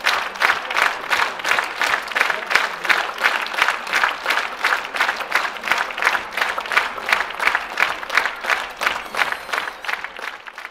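Concert audience applauding in rhythmic unison, about three claps a second, fading near the end.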